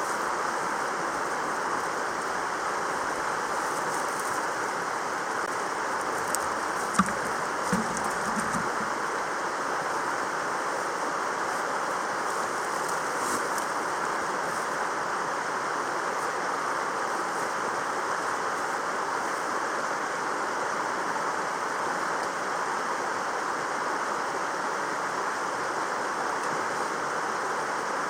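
Mountain stream flowing with a steady rush of water. A few brief low knocks sound about seven to eight seconds in.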